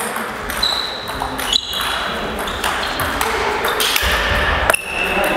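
Table tennis rally: the ball clicking sharply off bats and the table in quick succession, a hit or bounce about every half second to second.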